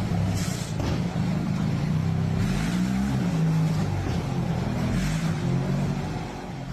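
An engine running, its pitch rising and falling as it revs.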